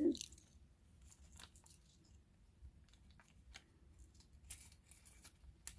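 Faint handling of bead packaging: scattered small clicks and crinkles of beads and their plastic bags being picked up and moved, with a cluster of clicks near the end.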